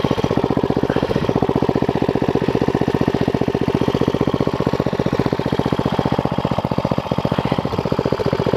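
The mini bike's 11 hp Tecumseh engine idling steadily, an even, rapid run of firing pulses.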